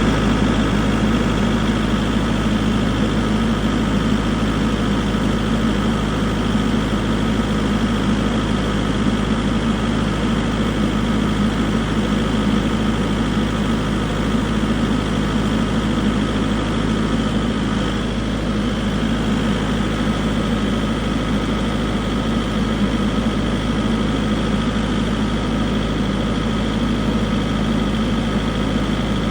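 SANY SY95 excavator's diesel engine running steadily, a constant drone with a higher buzzing overtone and no change in pitch or load.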